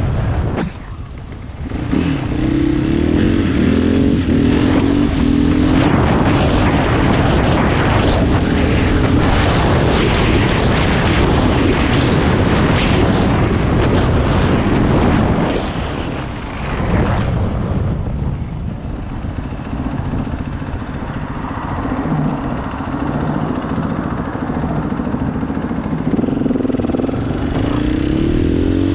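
KTM 500 EXC single-cylinder four-stroke dirt bike engine running under way, with wind noise on the microphone. It picks up about two seconds in and pulls hard, eases off about halfway, runs lower for a while, and picks up again near the end.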